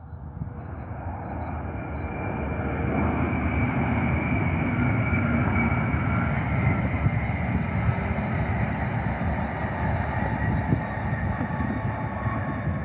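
AVE S-100 high-speed train passing on a viaduct: a rushing roar of wheels and air that swells over the first few seconds and then holds, easing a little near the end, with a faint high whine above it.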